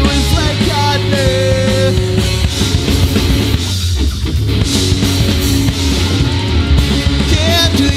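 Live rock band playing a song: electric guitars, bass guitar and drum kit, heard as a mono feed taken straight from the mixing desk.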